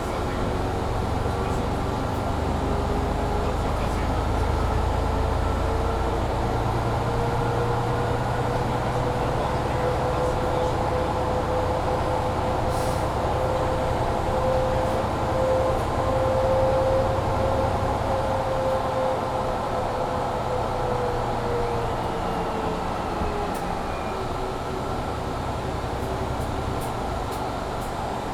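Mercedes-Benz Citaro C2 G articulated bus heard from inside, its diesel engine and Voith automatic gearbox pulling under load: a heavy rumble with a whine that slowly climbs in pitch, then falls away about two-thirds of the way through as the load drops off. A steady hum from the heater blower runs underneath.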